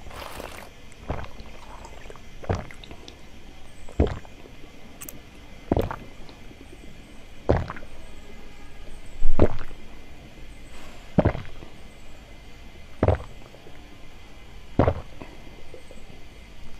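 Close-miked gulping as a person drinks a thick jelly drink, about nine swallows at an even pace, roughly one every two seconds.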